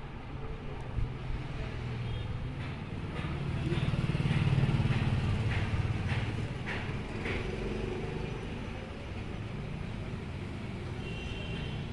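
Low rumble of motor traffic, swelling as a vehicle passes about four to five seconds in and then easing, with a few light clicks.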